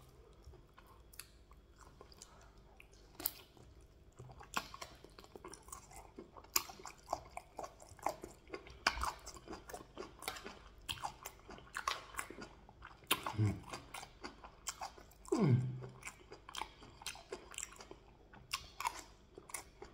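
A person chewing and biting a piece of cow leg and mouthfuls of rice, with many short mouth clicks throughout.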